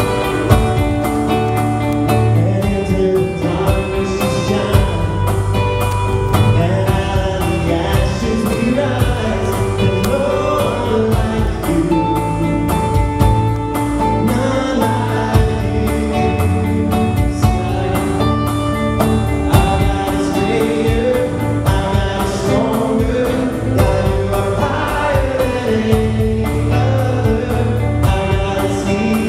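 A live praise and worship band playing a gospel-style song with strummed acoustic guitars, electric guitar, bass and drums keeping a steady beat, while a male voice sings.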